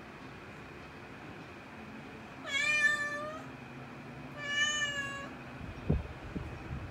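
Domestic cat meowing twice, each meow about a second long and level in pitch, about two seconds apart. A few short low thumps follow near the end.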